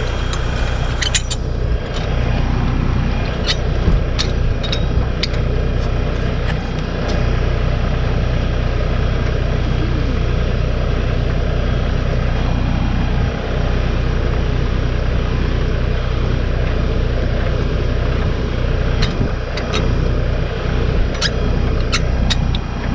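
Ford pickup truck engine idling steadily, with a few light clicks scattered through.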